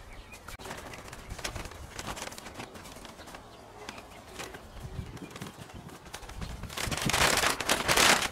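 Hands scooping and brushing loose sawdust among logs, with soft scrapes and rustles, then from about seven seconds in a loud crinkling of a woven plastic sack being opened and handled.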